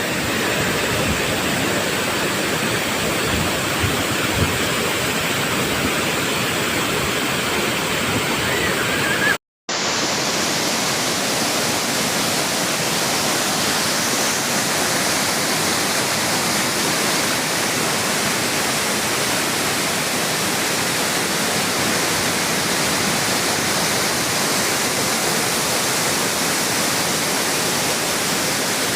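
Steady rush of water pouring over a waterfall. It cuts out for a moment about nine seconds in, then a similar rush of falling water carries on.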